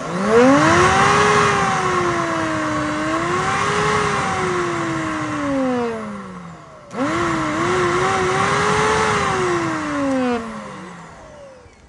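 Olsenmark heavy-duty commercial blender's 1800 W motor running with no jar fitted, in a loud whine that rises on starting and wavers up and down as the speed dial is turned. It winds down with a falling pitch at about six and a half seconds, starts again about seven seconds in, and winds down once more near the end.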